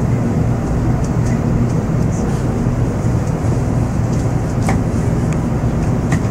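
Cabin sound of an N700-series Shinkansen car pulling out of a station: a steady low hum from the train's running gear, with a couple of faint clicks.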